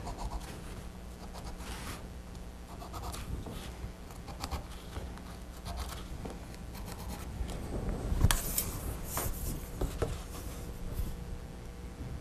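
Pencil scratching along a ruler as grid lines are drawn on a stretched canvas: a run of short strokes, with a few louder scrapes about eight seconds in.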